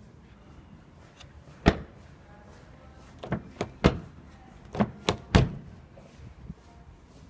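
A series of about seven sharp thumps, irregularly spaced: one alone, then a quick cluster of six over about two seconds, the last ones the loudest.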